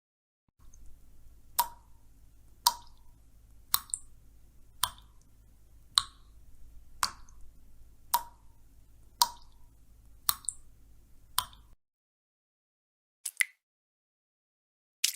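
Dripping sound effect of single drops falling into liquid, ten evenly spaced plinks about one a second over a faint low steady hum, presented as blood dripping. A short double click follows near the end.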